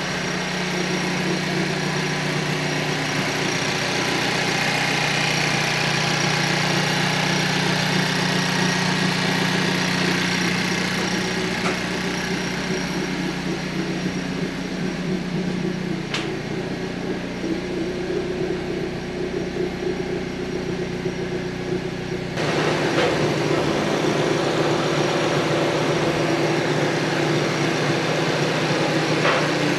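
Steady mechanical hum of a running machine, holding several even tones; its sound changes abruptly about two-thirds of the way through.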